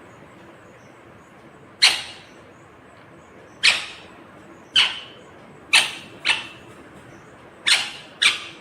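Indian ringneck parakeet giving short, sharp calls, seven in all at irregular spacing, two pairs coming in quick succession.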